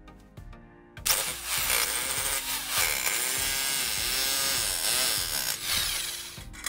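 Electric drill running with a socket on a nut, screwing a threaded bolt into a wooden post. It starts about a second in and stops near the end. Its pitch sags and recovers as the bolt bites into the wood.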